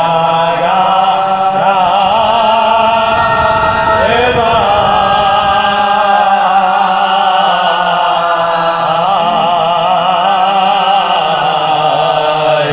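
Soz khwani: a male reciter chanting Urdu elegiac verse (soz) without instruments, in long held notes that waver and glide, over a steady low drone.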